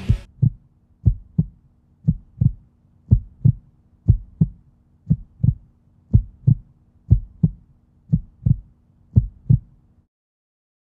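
Heartbeat sound effect: steady double thumps, about one beat a second, ten beats in all. The beats stop about a second before the end.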